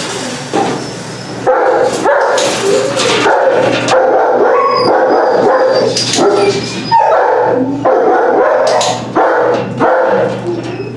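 Kennelled shelter dogs barking and yipping almost without pause, echoing off the steel kennels and hard walls.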